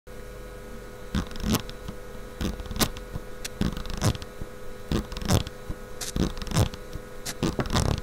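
Bourns PEC11R incremental rotary encoder turned by hand, its detents clicking one after another, sometimes singly and sometimes in quick runs, starting about a second in. A faint steady hum sits underneath.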